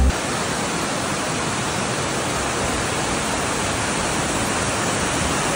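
Steady rush of a terraced waterfall, water cascading over rock steps into shallow pools.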